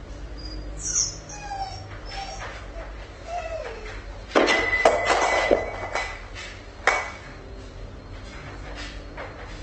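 A dog whimpering in short falling whines, echoing in the room. About four seconds in comes a louder rough noise lasting a second and a half, then a single sharp knock near seven seconds.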